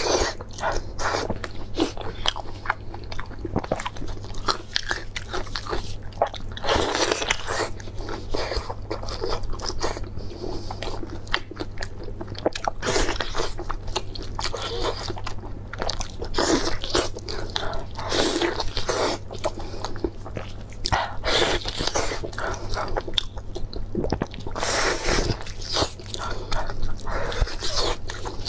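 Close-miked biting and chewing of meat off a sauced beef bone, with the meat pulled apart by gloved hands: many irregular short clicks and noisy stretches. A steady low hum lies underneath.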